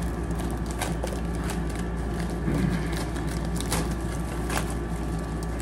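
Small packaging being handled and opened by hand, giving a few scattered sharp clicks and crinkles over a steady low hum.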